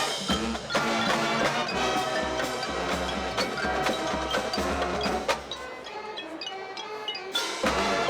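Instrumental music with a steady percussion beat. It gets quieter about five seconds in and turns loud again near the end.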